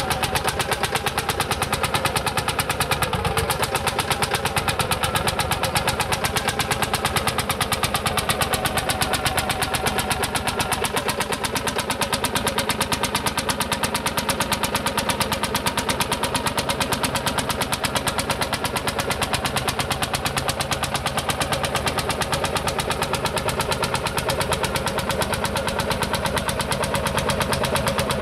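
Single-cylinder two-stroke hot-bulb semi-diesel tractor engine running at a steady, even beat.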